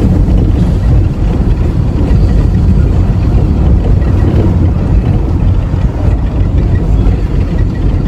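Car cabin noise while driving: a steady, loud low rumble of engine and tyres heard from inside the car.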